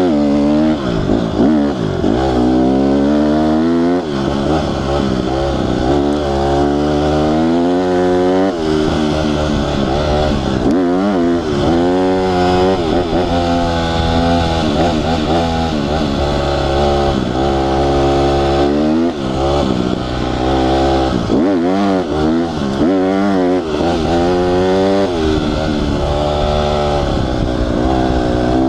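Honda CRF150R's four-stroke single-cylinder engine under way, revving up repeatedly, its pitch climbing and then dropping back as the rider shifts or backs off the throttle, over and over.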